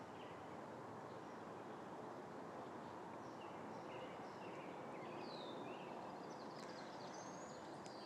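Faint steady outdoor background noise with scattered distant bird chirps: a few short falling notes and one rising whistle near the end.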